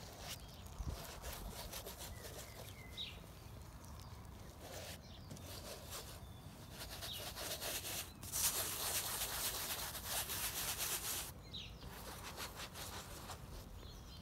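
Flat bristle paintbrush scrubbing and dabbing paint onto a stretched canvas in short strokes, louder and rougher for about three seconds past the middle.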